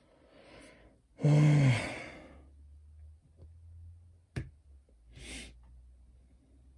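A man's loud voiced sigh about a second in, after a soft intake of breath. A sharp click follows a few seconds later, then another short breath.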